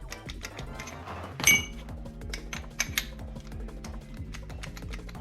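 Background music with a steady beat, and about a second and a half in a single metallic clink that rings briefly: steel transmission parts knocking together as a shift fork is wiggled in its synchro slider to feel for play.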